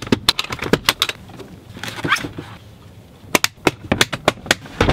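Sharp clicks and knocks of camera gear and a hard plastic equipment case being handled, in a cluster near the start and another burst about three and a half seconds in.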